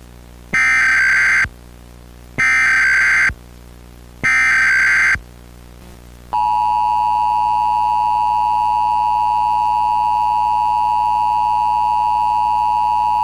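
Emergency Alert System signal: three short bursts of SAME header data tones, each about a second long with a gap between. About six seconds in, the EAS attention signal begins, a steady two-tone 853/960 Hz sound that holds without a break.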